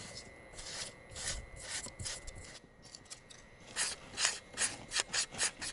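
Water and air sputtering from the ports of a six-port drip irrigation manifold as the new line is flushed in a flow test. Short, irregular hissing spurts that come quicker and louder in the last two seconds.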